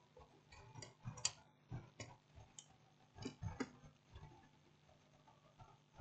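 Faint, scattered clicks and light taps from hands handling a TV circuit board and small tools on a workbench, about eight in the first four seconds, then almost nothing.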